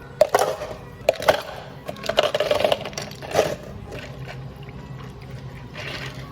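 Knocks, clinks and a short rattle from handling cafe tools and cups while making drinks. There are a few sharp knocks in the first second and a half, then a rattle under a second long a couple of seconds in, and one more knock.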